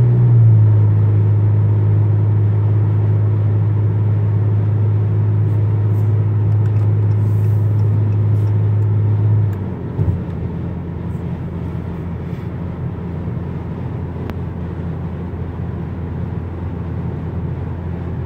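Chrysler 3.6 Pentastar V6 with a muffler delete, heard inside the cabin while cruising at 70 mph: a steady low exhaust hum that drops in pitch as the automatic upshifts to 7th just after the start, then drops again and gets quieter as it shifts to 8th about ten seconds in. It stays a mellow hum without drone.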